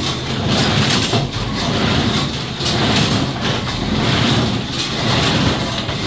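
PTO-driven small square baler running with the tractor engine, its packer and tucker fingers working with a rhythmic clatter that swells about once a second as the machine clears hay from the chamber after a welded repair.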